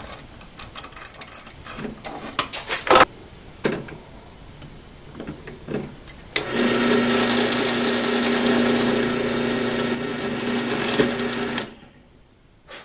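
Bench drill press switched on and running steadily for about five seconds, with a low motor hum, as a 4 mm bit drills the last pilot hole in a clamped metal plate, then switched off. Before it, scattered clicks and knocks as the clamped work is set in place under the bit.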